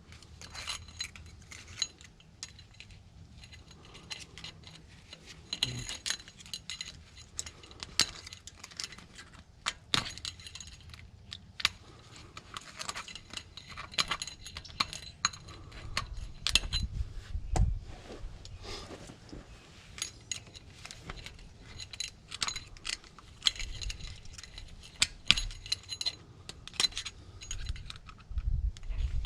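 Small metal hub parts and hand tools clinking and clicking against each other, many light irregular taps while a front locking hub is worked apart, with a few dull knocks about halfway through.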